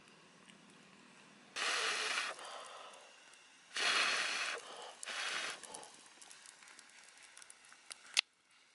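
Open wood fire burning under a cooking pan, with small crackles and one sharp snap near the end. Three short bursts of rushing noise come in the first half, each lasting most of a second.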